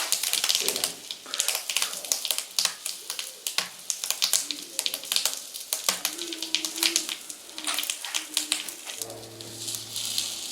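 Bubble wrap popping and crackling in rapid, irregular clicks as a red-hot metal ball melts into it. Music comes in near the end.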